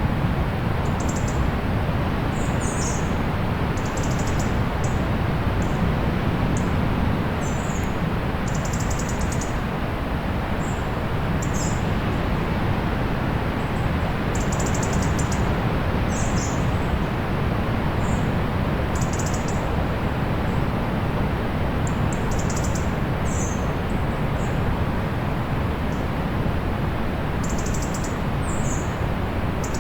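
Steady rush of distant sea surf, with birds chirping over it in short, high-pitched calls and trills scattered throughout.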